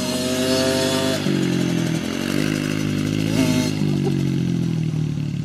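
Small dirt bike engines running at low, fairly steady speed, with a brief rise in pitch about three and a half seconds in.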